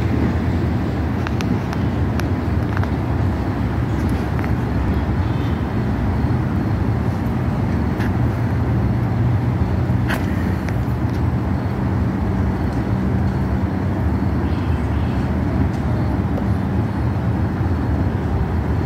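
Steady low rumble of road traffic, even in level, with a few faint clicks.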